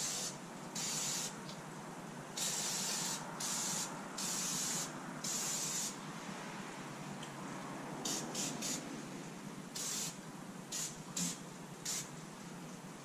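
Aerosol can with a straw nozzle spraying lubricant into the drive-chain case of a Kubota B2782B snowblower, in a series of hissing bursts. About six longer sprays in the first half, then several short, quick squirts.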